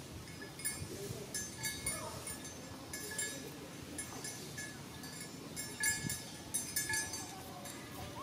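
Long-tailed macaques giving short, high squeaky calls that glide in pitch, with scattered sharp clicks in between.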